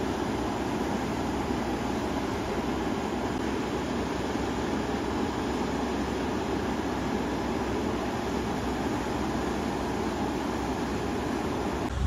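Swollen, muddy river rushing past its bank: steady rushing water.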